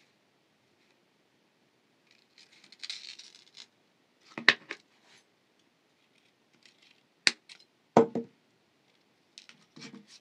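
Diagonal wire cutters snipping thin brass jewelry wire: a few sharp metallic clicks, with the rustle of the wire and spool being handled before them.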